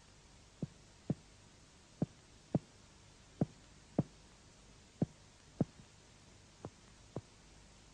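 Mediate (finger-on-finger) percussion of the chest: ten short taps struck in pairs, about half a second apart within each pair, with the pairs coming roughly every second and a half. The tapping is mapping the upper border of the heart's relative dullness.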